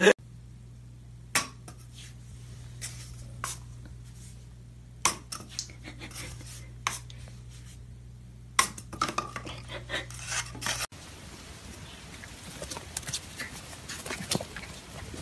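Scattered sharp clicks and taps against a bathtub, coming in small clusters, over a steady low hum. About eleven seconds in the hum cuts off and gives way to a noisier hiss with a few fainter clicks.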